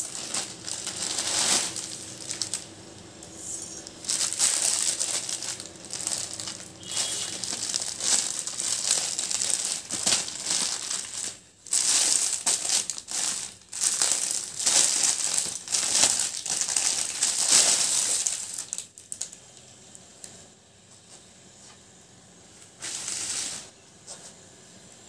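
Plastic packaging, a courier mailer and a clear plastic wrapper, crinkling and rustling in irregular bouts as it is handled and opened. The rustling stops about three-quarters of the way through, apart from one short rustle near the end.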